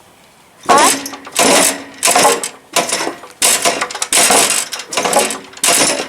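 A horse banging its stall over and over, a series of sharp rattling clangs with a metallic ring, about eight in a row at an even pace of roughly three every two seconds.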